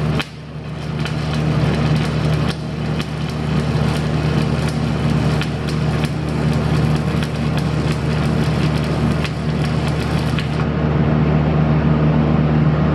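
Stick (shielded metal arc) welding arc crackling and popping steadily while a bead is run, over the steady hum of the welding machine.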